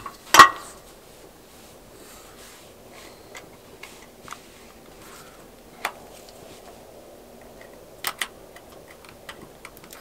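Small, scattered clicks and ticks of steel tweezers working on an iPhone 7 Plus's internal metal bracket and parts. The loudest, sharpest click comes about half a second in, and there is a quick double click a little past the eight-second mark.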